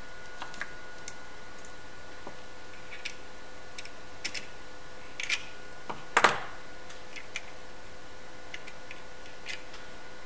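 Scattered small clicks and taps of hands fitting a wire loop into a brass-terminal circuit-board test fixture, with one louder knock about six seconds in. Under them runs a faint steady two-note hum.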